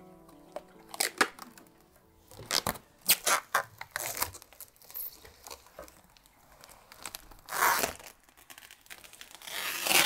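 Protective plastic film being peeled off a tempered-glass case panel, crackling and tearing in a series of short rips, with longer peels near 8 seconds and at the end.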